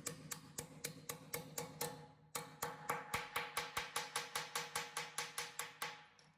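Background music with a steady ticking beat, about four beats a second over held tones, pausing briefly about two seconds in and fading out at the end.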